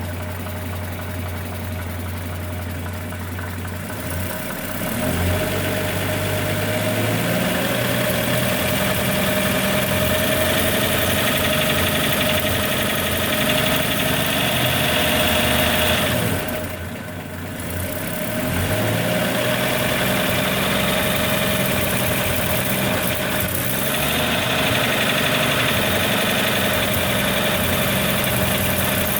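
1941 Chevrolet 216 stovebolt inline-six engine running, making a strange noise the owner is trying to pin down. The engine speeds up about four seconds in, dips briefly past the middle, then picks up again. A steady whine rides over the engine note.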